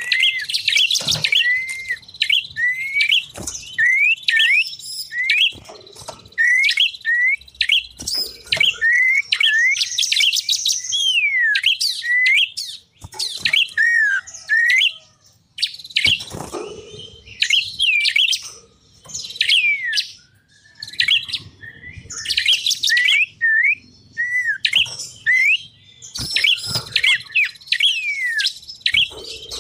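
Small wild songbirds of the kind used as lure calls for ciblek, prenjak and cipoh singing dense strings of quick chirps and short sweeping whistles, repeated with brief pauses. A faint steady high tone runs underneath.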